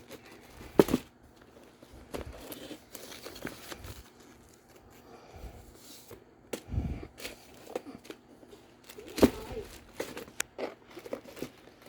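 Packaging paper crinkling and rustling as a handbag is handled and unwrapped. There are several sharp clicks, the loudest about a second in and again about nine seconds in.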